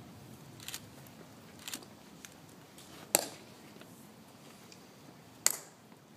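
Sharp clicks of hard shoe heels on stone, about five of them spaced irregularly; the two loudest, about three and five and a half seconds in, ring briefly.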